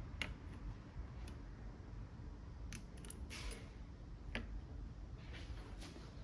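Faint, irregular small clicks and short scrapes, about seven in all, from repair tools and small parts being handled during an iPhone X teardown.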